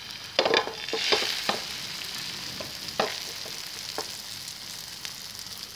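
Beaten egg sizzling in a hot greased frying pan, a steady hiss, with a cluster of sharp ticks and crackles in the first second and a half and two single ticks later.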